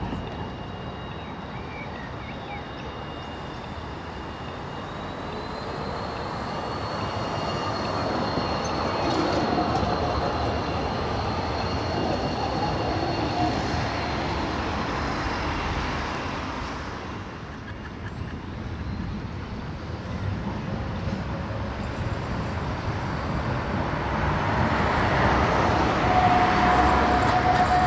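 Low-floor electric tram passing on street track: the rumble of its wheels on the rails rises and fades, with a high steady whine from its running gear. Near the end, trams turning at a junction, with a steady wheel squeal.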